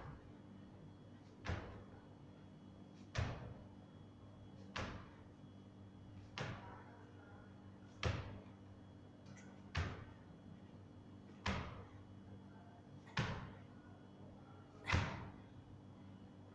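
Hands thudding down on a carpeted floor during jumping push-ups, one landing every second and a half or so, about ten in all, over a steady low hum.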